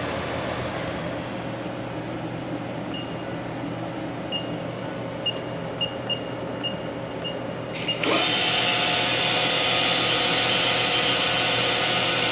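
Haas VF-1 CNC vertical machining center: a steady hum with a string of short electronic beeps, then about eight seconds in the spindle starts with a quick rising whine and runs on steadily and louder, a drill-like whir with high tones.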